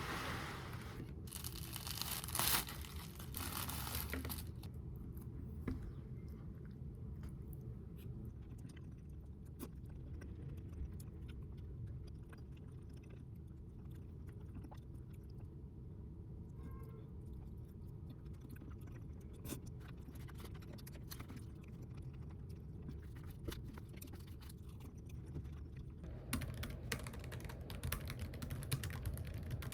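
Quiet room tone with a low steady hum and scattered small handling clicks; a few short noisy rustles in the first few seconds, and rapid keyboard typing starting near the end.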